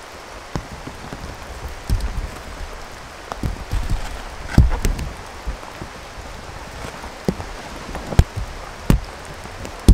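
Steady rain falling, with low thuds and the flap of a canvas tent panel being pulled and shaken out, and scattered sharp knocks, the loudest near the end.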